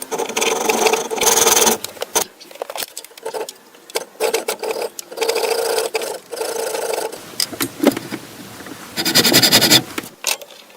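Abrasive rubbing or rasping strokes on the axe, as with a file or sandpaper, coming in bursts of one to two seconds with short pauses between them.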